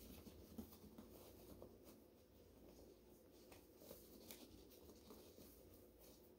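Near silence, with faint rustles and a few light clicks from a book's packing bag being handled and opened.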